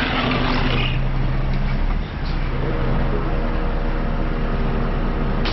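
Heavy truck engine running steadily. About two and a half seconds in, its note rises a step and it keeps running at the higher speed. A hiss dies away in the first second.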